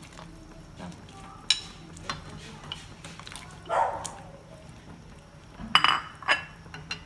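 Wooden chopsticks tapping and scraping against a ceramic plate as chunks of pineapple and tomato are pushed off it into a pot of boiling broth, the pieces dropping into the liquid. There are a few separate clinks, and a quick cluster of sharper, ringing clinks near the end.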